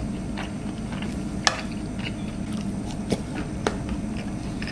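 Close-miked chewing of fried food, with a few sharp wet mouth clicks, the clearest about a second and a half in and twice more a little after three seconds, over a low steady hum.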